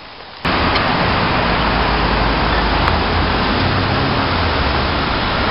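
Steady traffic noise of a city street, cutting in abruptly about half a second in.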